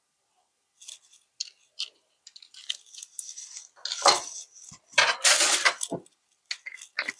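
Small kitchen items being handled on a countertop: scattered clicks and clinks, busiest and loudest from about four to six seconds in.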